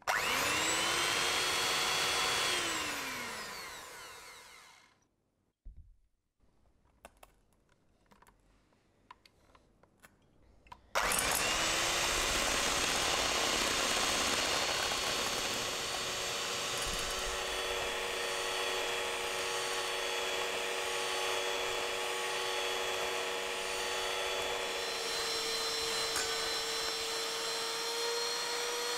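Electric hand mixer beating dalgona coffee mixture in a stainless steel pot. Its motor starts with a rising whine and runs briefly, then winds down to a stop with falling pitch. After a few seconds of small clicks it starts again about eleven seconds in and runs steadily.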